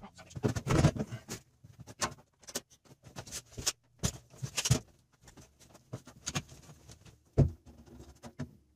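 Irregular clicks, taps and knocks of hands handling tools and parts at a wall-mounted water heater, with quiet gaps between them and a sharper knock near the end.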